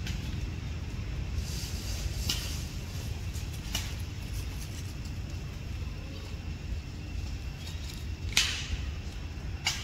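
Outdoor ambience: a steady low rumble with four short, sharp crackles, the loudest about eight and a half seconds in.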